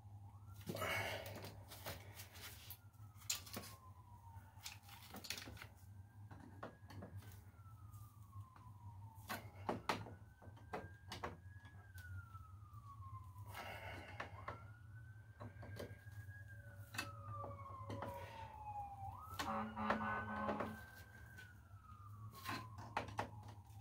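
Police siren wailing, its pitch jumping up and then sliding slowly down about every four to five seconds. Scattered sharp clicks and knocks of a screwdriver on the breaker's terminal screws sound over it.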